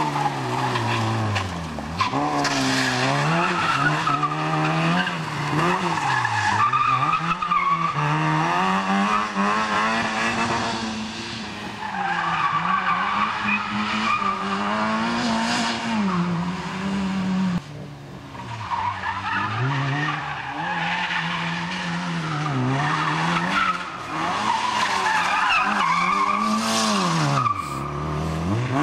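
A small hatchback's engine is revved hard and dropped again every few seconds as the car is driven fast through tight turns, with tyres squealing and spinning in the corners.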